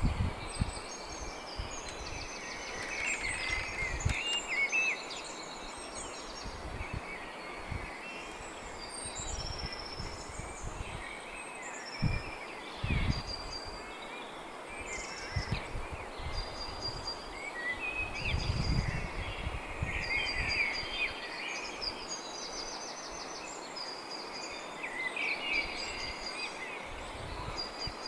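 Small songbirds singing and calling, with repeated high chirps and trills, over steady background noise. Scattered low rumbles and thumps on the microphone come and go, the longest about two-thirds of the way through.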